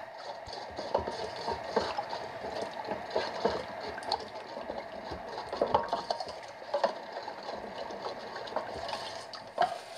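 Metal spoon stirring a soy-sauce marinade in a stainless steel bowl: liquid sloshing and swirling, with irregular small clicks and scrapes of the spoon against the bowl.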